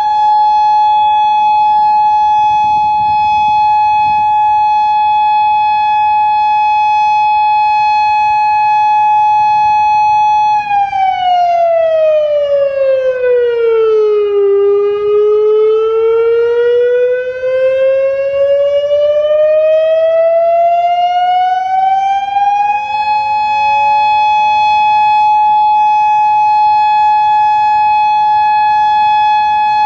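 Federal Signal Modulator 6048 outdoor warning siren sounding loud and steady. Its tone slides down to a low pitch and back up, then holds again, with a fainter second tone gliding on its own beneath it.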